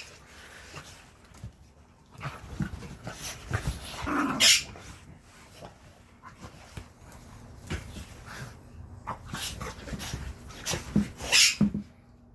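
An American bulldog and a small hairless dog play-fighting, with irregular short dog noises and scuffling. There are louder outbursts about four and a half seconds in and again near the end.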